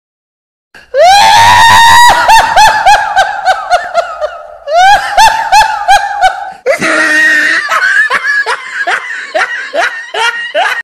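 A loud, high-pitched laughing sound effect: rapid rising cackles about four a second, with a brief break a little before halfway, then a rougher, breathier cackling for the rest. It starts and stops abruptly out of dead silence, as an edited-in clip does.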